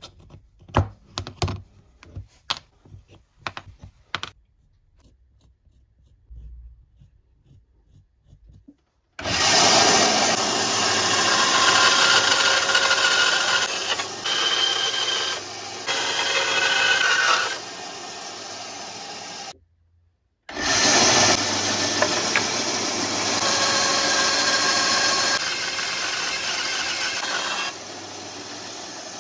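A few sharp taps, then a bench band saw cutting through a wooden knife-handle block. The saw noise is loud and steady and shifts in level as the cut goes on, breaking off for about a second in the middle.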